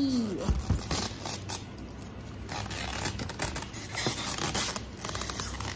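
Thin plastic bag rustling and crinkling in irregular bursts as it is worked off a boxed coffee machine.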